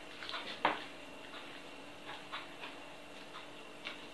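Metal utensil cutting butter into flour on a wooden board, giving light irregular clicks and taps, the clearest one under a second in.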